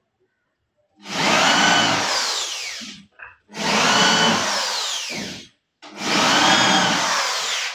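Corded power drill run in three bursts of about two seconds each, working into the particleboard top of a cabinet; in each burst the motor's whine slides down in pitch as it loads up.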